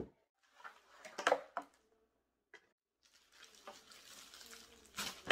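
Cardboard shipping box and packaging being handled: a few knocks and rustles as box flaps and an inner box are shifted, a quiet pause, then a stretch of rustling as wrapped contents are pulled out, with a sharp knock near the end.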